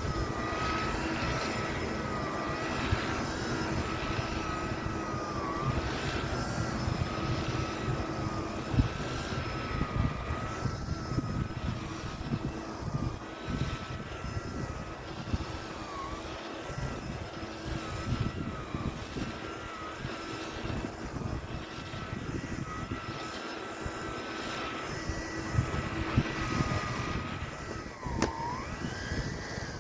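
Electrolux Prolux Plus vacuum cleaner running steadily on carpet, its motor whine dipping briefly in pitch every few seconds as the load changes with the strokes. The sound drops away at the very end.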